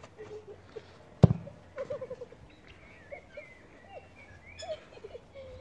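A football kicked once, a single sharp thud about a second in, with garden birds chirping and calling in short phrases throughout.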